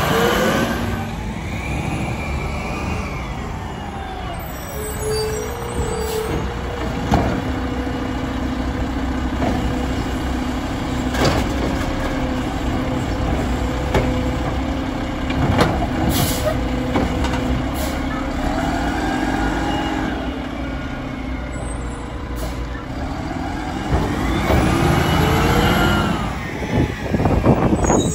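Mack LR Labrie Automizer side-loader garbage truck at work: its engine revs up and eases off twice, with a steady held whine through the middle stretch while the automated arm handles a cart. Several sharp clunks and knocks from the arm and cart, and air brake hisses.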